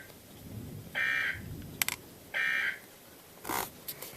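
Two short bursts of EAS digital header tones, the warbling data squeal of the end-of-message code, from a NOAA Weather Radio broadcast, about a second and a half apart. A few sharp clicks of static come between and after them.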